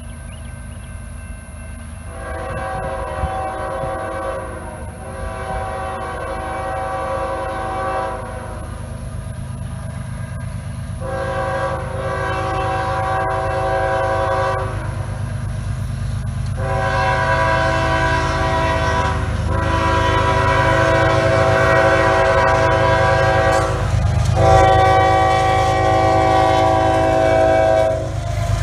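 CSX freight train's diesel locomotives approaching, the horn sounding a chord in a series of long blasts with short gaps between, beginning about two seconds in. Under the horn a low engine rumble grows steadily louder as the locomotives near.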